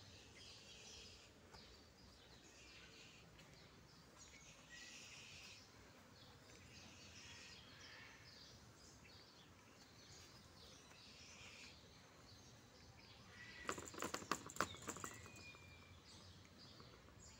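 Faint bird chirps scattered over a quiet background, with a quick run of sharp clicks and knocks about fourteen seconds in.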